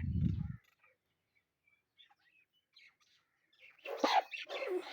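Aseel chickens calling: a low, loud call in the first half second, a few faint chirps, then a run of harsh squawks over the last second or so.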